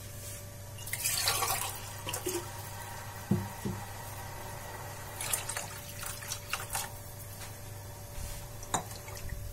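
Water poured into a wok of gravy about a second in, followed by scattered small knocks and clicks over a steady low hum.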